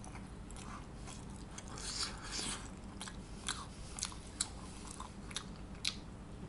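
A person chewing a mouthful of pizza with the mouth closed: soft crunching and wet mouth clicks, with a few sharper clicks in the second half.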